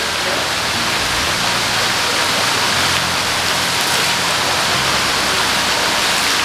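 Water jets from inlet pipes on the edge of a shallow fish spa pool, splashing steadily into the pool. This is the pool's continuous fresh-water feed.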